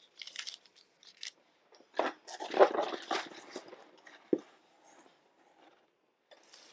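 Plastic snack wrappers crinkling and rustling as candy packets are handled and sorted in a cardboard snack box, in short irregular bursts, loudest a couple of seconds in, with a light tap about four seconds in.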